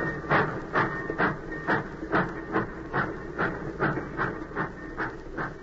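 Radio-drama sound effect of a steam train under way: steady chuffing a little over two beats a second, growing slightly fainter toward the end.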